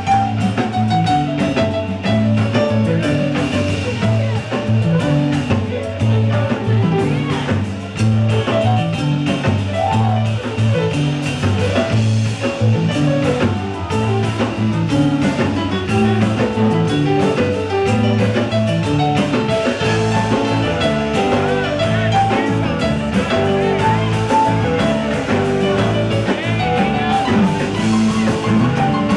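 A rock band playing live with keyboard, electric guitars, bass and drum kit.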